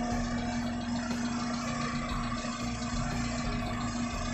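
Daihatsu Taruna EFI engine idling steadily while its idle speed is being turned down toward about 800 rpm at the throttle body's idle adjusting screw.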